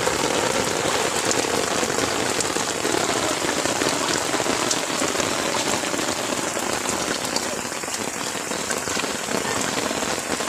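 Steady rain falling, with many individual drops ticking on a surface close by.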